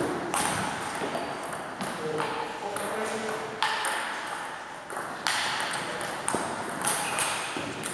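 Table tennis rally: the ball clicking sharply off bats and the table in an irregular string of hits, each with a short echo in a large sports hall.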